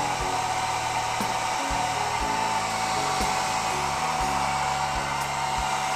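Handheld hair dryer running steadily: a rush of blown air with a steady motor whine, aimed close at the plastic switch panel of an air cooler to dry off water.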